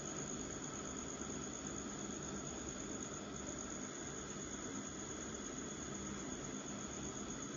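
Steady background hiss and room noise picked up by a phone's microphone, with a faint low hum and no distinct events.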